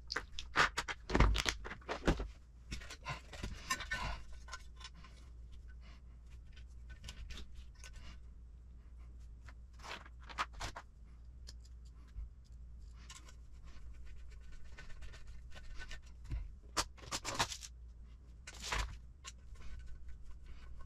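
Hands handling small plastic kit parts and a clear plastic parts box on a bench: scattered clicks, taps and light knocks, the loudest in the first couple of seconds, with scraping and the rustle of instruction-manual pages being turned.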